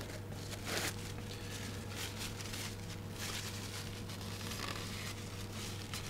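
Faint rustling of a lint-free paper wipe being drawn from its box and rubbed over an instrument's connector end, over a steady low hum.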